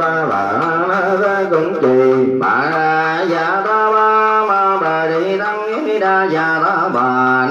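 A Vietnamese Buddhist monk chanting a liturgy in a sung melody, holding long notes and sliding between them, with a brief breath about two and a half seconds in.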